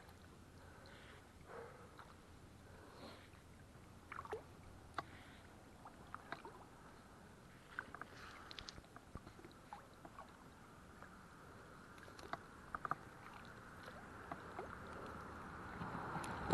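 Faint water sloshing and dripping with scattered small splashes and ticks, over a steady distant hum of highway traffic that grows louder near the end.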